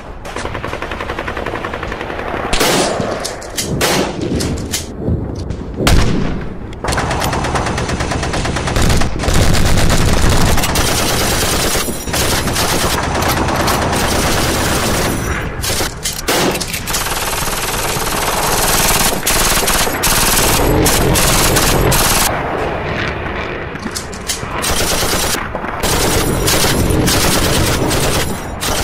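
Automatic gunfire for a staged jungle firefight: rapid machine-gun bursts and shots overlapping almost without a break, with a few short lulls.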